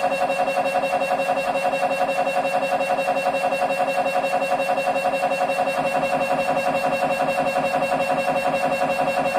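Siemens Symphony Maestro Class 1.5 T MRI scanner running a scan sequence: its gradient coils pulse in a fast, even rhythm, giving a loud buzzing drone with steady pitched tones. The lower part of the pattern shifts about six seconds in.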